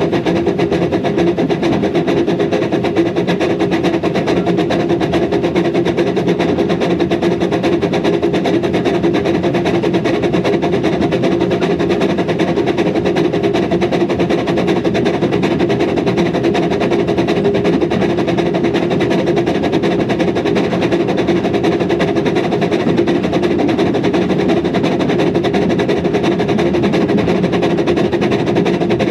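Hunslet 0-4-0 saddle-tank narrow-gauge steam locomotive running along the line, heard from on top of its boiler: a loud, steady running noise that does not let up.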